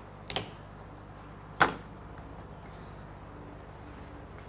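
Two short sharp knocks about a second and a half apart, the second much louder, over a low steady hum.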